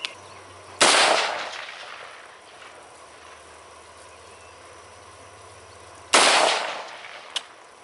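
Two rifle shots from a Radical AR-15 about five seconds apart, each sharp crack trailing off in an echo over about a second. A light click follows shortly after the second shot.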